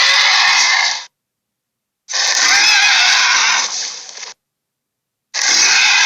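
Dragon sound effects: harsh, raspy roars, each about two seconds long and wavering in pitch, separated by dead silence. One roar ends about a second in, a full one follows, and a third begins near the end.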